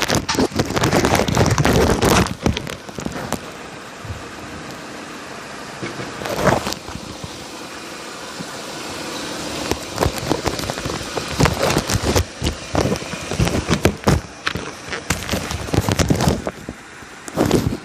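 Irregular, rapid metallic rattling and clicking at the right-front strut of a 2011 Chevrolet Cruze, over road noise. It comes in spells: dense at the start, easing off for several seconds, then busy again. This is the intermittent rattle that a dealer has not been able to trace.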